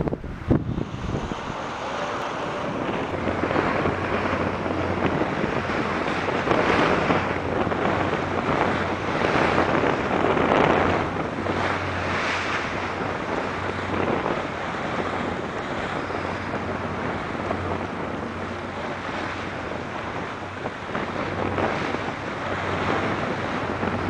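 Strong gusty wind buffeting the microphone over rough, choppy harbour water, swelling and easing in gusts, with a low steady hum underneath.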